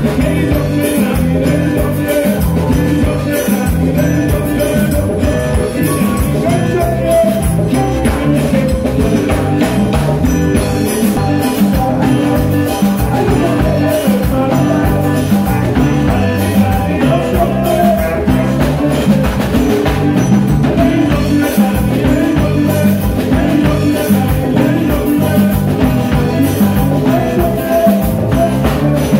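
Live Virgin Islands scratch (quelbe) band playing an upbeat tune: hand drums, a scraped gourd and bass keeping a steady rhythm under banjo, flute and saxophone.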